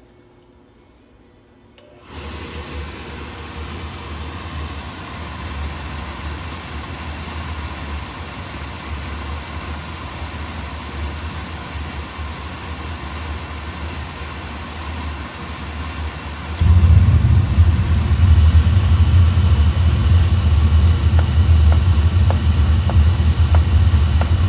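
Oil burner starting a cycle: the burner motor comes on about two seconds in with a steady whir, then some fourteen seconds later, after the pre-purge, the oil solenoid opens and the flame lights with a sudden, much louder low rumble that holds steady.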